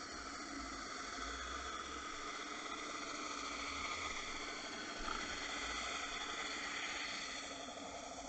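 Steady underwater hiss picked up by a submerged camera on a fishing rig, with a few faint steady hum tones and a low bump about five seconds in.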